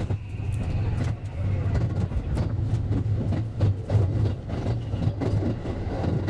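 A JR West 223 series electric train running on the line, its recording sped up four times, so the rumble of the running gear sits as a low steady hum under a rapid, irregular run of sharp clicks from the wheels passing over rail joints and points. The train has just left a station.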